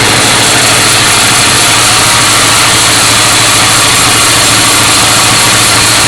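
1966 Ford Mustang's 289 V8 engine idling steadily and loudly.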